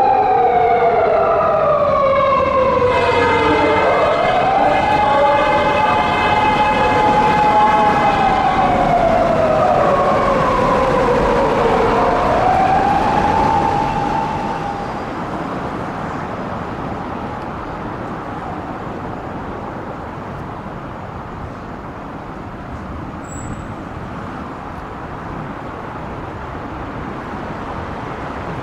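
Japanese police patrol car's siren wailing on an emergency run: a held tone that slowly falls and rises back, twice, then stops about halfway through. Steady road traffic noise follows.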